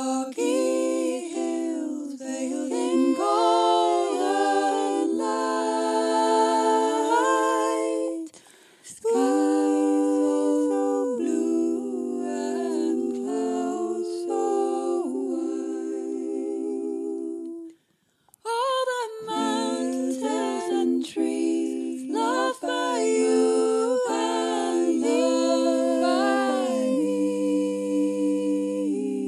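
A cappella choir humming a wordless melody in close harmony, with two short pauses between phrases.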